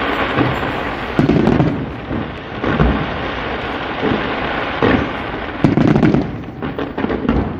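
Fireworks going off in a dense, continuous barrage, with heavier booms every second or so and a quick run of crackles near the end.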